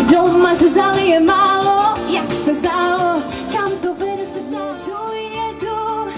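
Upbeat pop-style song: a woman singing a melody over a backing track with drums.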